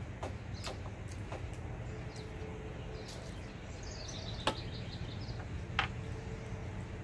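Eating sounds with a few sharp clicks over a steady low hum. A quick run of high bird chirps comes in the background about four seconds in.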